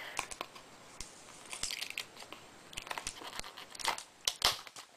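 Hands opening the retail packaging of an iPod case: packaging crinkling and rustling, with scattered small clicks and taps and a few louder handling noises.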